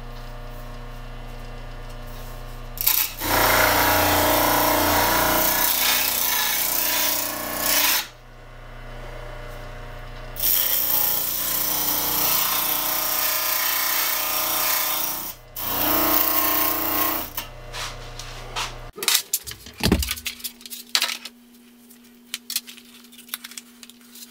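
Electric motor driving an Eazypower Isomax motor arbor with a 3M abrasive wheel: a steady hum, broken three times by long, loud, harsh grinding as a rusty steel plate is pressed against the wheel to strip the rust. The motor shuts off a little before the end, and scattered clicks and handling knocks follow.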